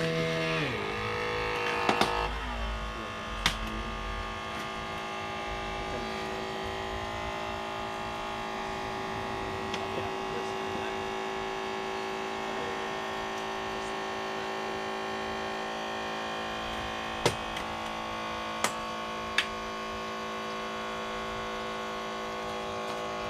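An engine drops in pitch within the first second or so and settles to a steady idling hum. A few sharp clicks or knocks stand out over it, the loudest a little after seventeen seconds.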